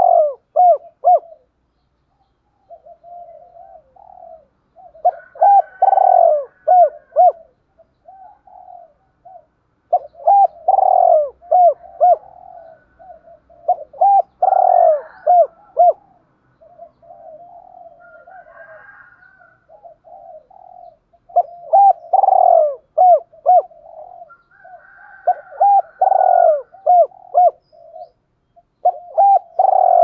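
Spotted dove cooing: short phrases of rolling coos repeated in groups every few seconds, with quieter pauses between.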